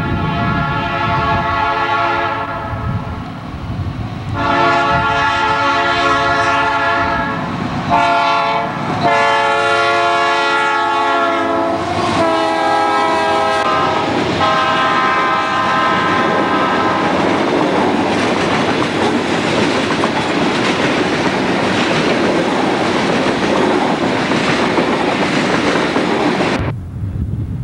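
A Southern Pacific diesel locomotive's air horn sounds a long, long, short, long grade-crossing signal, with the last long note broken into two. The last blasts are slightly lower in pitch as the locomotive passes. Loaded coal hopper cars then roll by with a steady rumble and clatter of wheels on rail, cutting off near the end.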